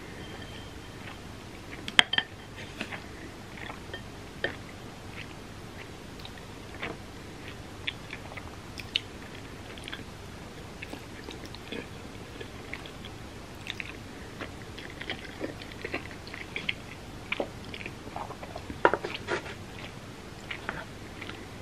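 Close-up eating sounds: chewing, with many soft wet clicks and smacks from the mouth and a few sharper clicks about two seconds in and near the end.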